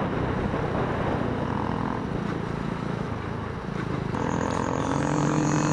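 Motorcycle engine running steadily while riding, with wind noise on the bike-mounted camera's microphone; the engine note shifts about four seconds in.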